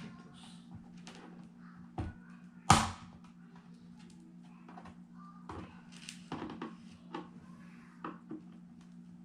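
Plastic back cover of an all-in-one computer being pried apart by hand: scattered plastic clicks and knocks, with one loud, sharp snap just under three seconds in, over a steady low hum.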